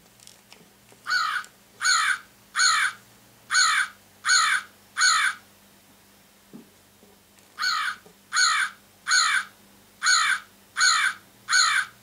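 Sound box of a Wild Republic Audubon plush American crow playing its recorded American crow call: two bouts of six caws, evenly spaced, with a pause of about two seconds between the bouts.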